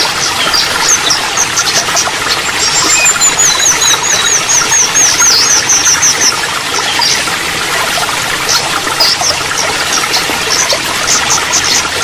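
Running water trickling steadily, with small songbirds calling over it: a fast run of high down-slurred notes from about three seconds in, then scattered high chirps and a quick burst of chirps near the end.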